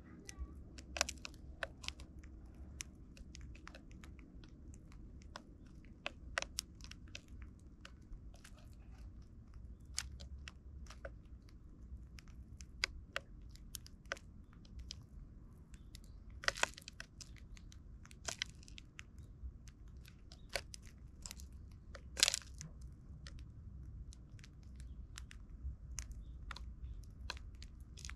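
Eurasian tree sparrows pecking and cracking seed from plastic feeding trays close to the microphone: irregular quick taps and crunches of beaks on seed and tray. A few louder crunches come about a third and again three-quarters of the way through.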